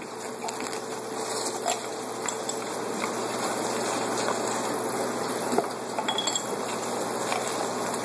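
A clear plastic bag crinkling as it is handled, with small hard items inside giving short clinks, over a steady trickle of water from the aquarium and aquaponics system.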